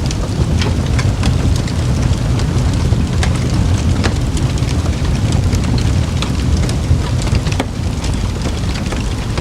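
Wood campfire burning, crackling with frequent sharp pops and snaps over a steady low rumble.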